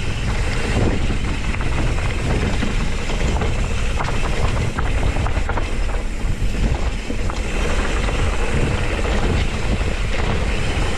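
Wind rushing over the microphone and mountain-bike tyres rolling fast on a dirt trail, with scattered clicks and rattles from the bike over bumps.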